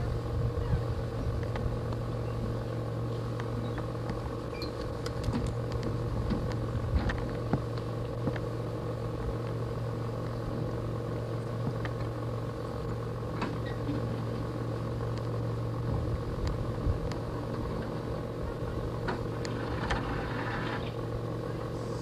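A steady, unchanging hum made of several fixed pitches, with scattered light clicks and knocks over it.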